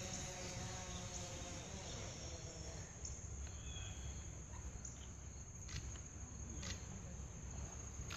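Crickets trilling steadily in a high, unbroken tone over a low background rumble, with faint murmuring voices in the first couple of seconds.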